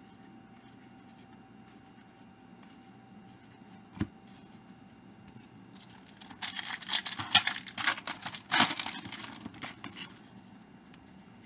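Trading-card pack wrapper being torn open and crinkled, in loud crackly bursts for a few seconds after a single click.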